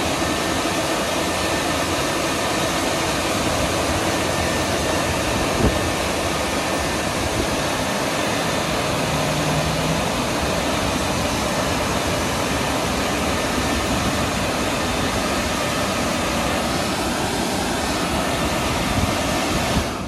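WashTec EasyWash rollover car wash on its drying pass: the gantry's blower fans run with a steady rushing noise as it travels over the car, falling away right at the end.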